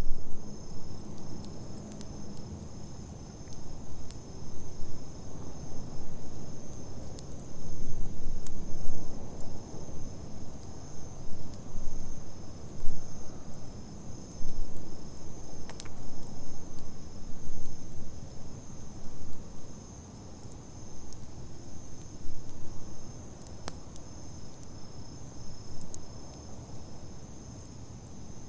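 Campfire burning with an uneven low rush and a few sharp pops from the wood, over a steady high chirring of insects.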